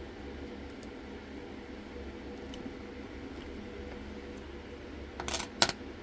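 Lock picks working in a dimple lock cylinder: a few faint metal ticks, then a short clatter of sharp metal clicks about five seconds in, over a steady low hum.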